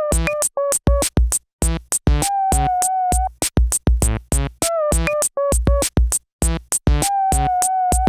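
Electronic outro music: a steady drum-machine beat under a synthesizer melody, with some notes held about a second.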